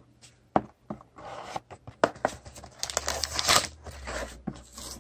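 Hands opening a cardboard trading-card hobby box: a few sharp clicks and scrapes of the cardboard, then crinkling and tearing of the plastic wrapping inside through the second half.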